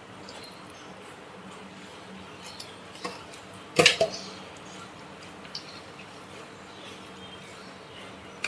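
Light kitchen handling sounds: a few soft clicks and one short, louder clatter about four seconds in, over a steady low hum.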